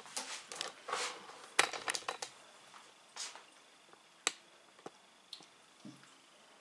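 Toddler eating from a plastic bowl: a few sharp clicks of a fork against the bowl, with soft chewing and mouth noises between them.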